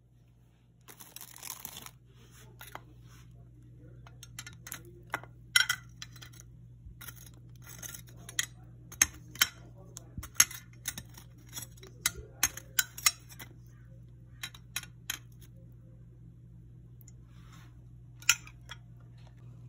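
Plastic wrapper crinkling briefly about a second in, then a long run of sharp irregular clicks and taps from metal tongs knocking against a glass dish, over a steady low hum.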